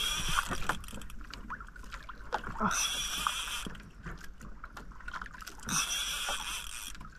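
Fishing reel being cranked in three short bursts about three seconds apart, winding line in on a hooked fish, with small knocks between the bursts.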